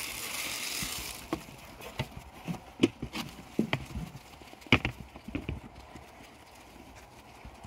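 Sheep eating grain and jostling at a metal feed trough: irregular clicks and knocks, loudest about three and five seconds in, thinning out near the end.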